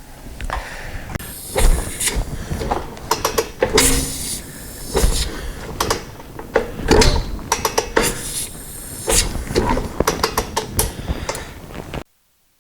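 Parts and their packaging being handled: rustling and crinkling with scattered sharp clicks and knocks, cutting off abruptly near the end.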